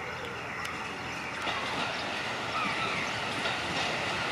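Former JR Tokai KiHa 11 diesel multiple unit approaching on the rails. Its running noise grows louder from about a second and a half in.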